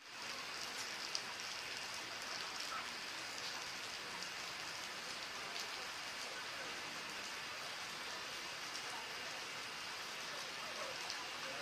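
Steady, even outdoor hiss like light rain falling on surfaces, with a few faint ticks.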